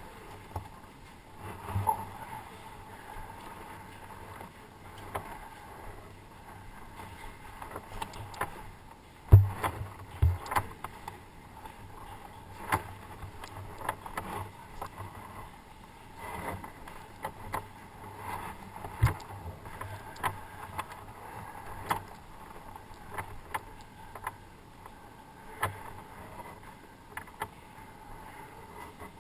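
Footsteps on concrete stairs with irregular knocks and clicks of handled gear, heard close up. The loudest is a heavy thump about nine seconds in, with another near nineteen seconds.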